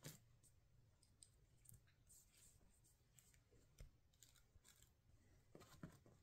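Near silence broken by faint scattered clicks and soft taps as kittens paw and bite at a hand-held stick on a bedsheet, a few slightly louder near the end.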